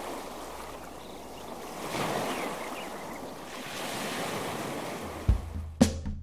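Ocean surf: waves breaking and washing in a steady rush that swells about two seconds in. About five seconds in, music comes in with a bass note and drum hits.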